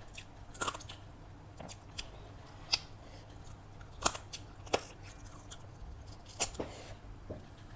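Close-miked chewing of a mouthful of chicken biryani, with about seven sharp, wet mouth clicks and smacks spread through it over a faint steady hum.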